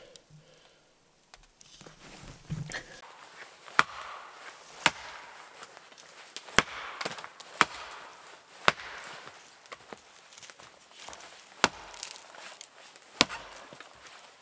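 Council Tool Camp Carver axe chopping into a standing cedar trunk: seven sharp strikes at an uneven pace, starting about four seconds in.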